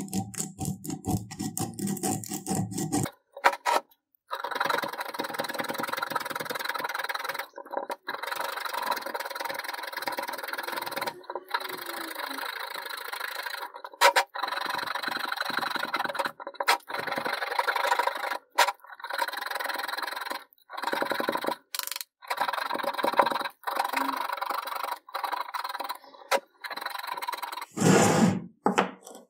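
Hand sanding with a strip of sandpaper on the hardened epoxy putty and metal tube of an antique iron's handle, a steady scratchy rubbing in stretches broken by brief gaps.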